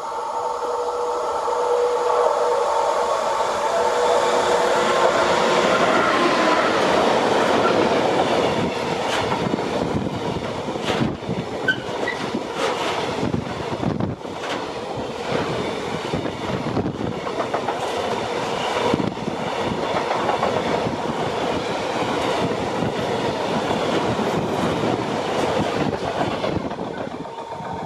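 A train passing close by: a steady whine in the first few seconds gives way to loud rumbling wheel noise with the clickety-clack of wheels over rail joints, easing off near the end.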